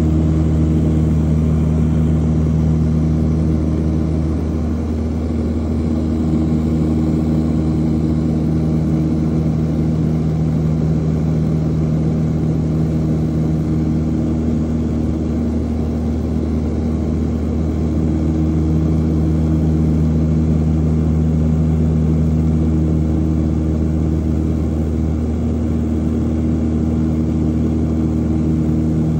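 Propeller airplane's engine and propeller heard from inside the cabin in level flight: a steady, loud drone with a low humming tone whose upper notes slowly swell and fade a few times.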